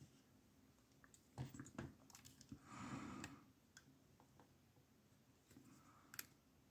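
Near silence, broken by a few faint clicks of small metal lock picks and tension tools handled at a padlock, with a soft rustle about three seconds in.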